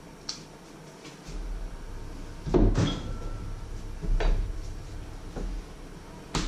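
Refrigerator door and the things in it being handled: a few separate knocks and clatters, the loudest about two and a half seconds in with a brief ring after it, and a sharp click near the end as the fridge door shuts.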